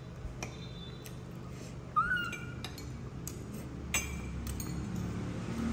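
Scattered light clinks of tableware and a brief high squeak from a pet baby monkey about two seconds in, with a fainter squeak near four seconds. A steady low hum runs underneath.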